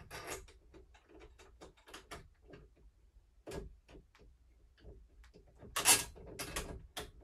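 Light clicks and taps of metal door-handle parts and fixing screws as the screws are pushed through the lever handle and turned in by hand, with a louder clatter about six seconds in.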